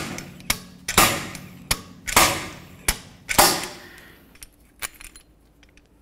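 Slide hammer pulling a pressed-in rear axle bearing out of a truck's axle housing tube. There are four heavy metal-on-metal strikes about a second apart, each ringing briefly, with a lighter click between them as the weight is slid back. A few small clicks follow near the end as the bearing comes free.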